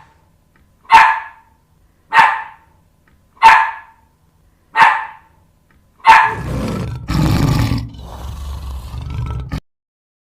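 A dog barking four times, single sharp barks a little over a second apart. About six seconds in, a different, harsher and noisier animal sound with a deep low end takes over for about three and a half seconds and cuts off suddenly.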